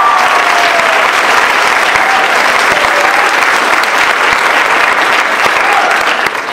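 Audience and cast applauding, dense steady clapping with a few faint voices in it, dying away near the end.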